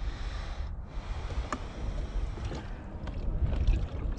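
Wind buffeting the microphone and water lapping around a plastic fishing kayak, a steady gusty rumble broken by a few light clicks from handling the rod and lure.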